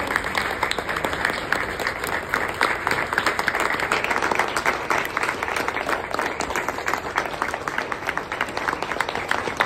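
Audience applauding: many hands clapping together in a steady, continuous round.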